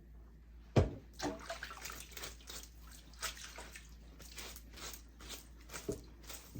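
A wet wig being worked by hand in water with conditioner: irregular splashing and squelching, with a single thump about a second in.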